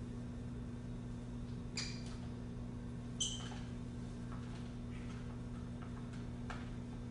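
Clear plastic packaging being handled, giving a few brief squeaks and crinkles: one about two seconds in, a sharper one about three seconds in, and another near the end, over a steady low electrical hum.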